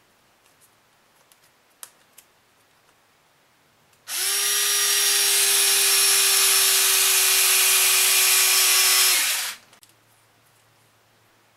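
Cordless drill/driver with a long hex bit running steadily for about five seconds, driving a hex screw into the end of an RC crawler suspension link. It spins up quickly about four seconds in and stops abruptly. Before it start there are light clicks of small plastic parts being handled.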